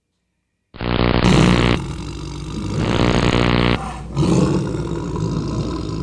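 Tiger roar sound effect: a big cat roaring loudly in three long swells, starting just under a second in after silence.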